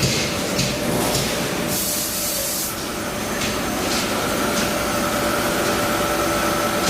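Trumpf L-3030 4000-watt CNC laser cutter running: a steady machine hum with short bursts of hiss about every half second, and one longer, louder hiss about two seconds in.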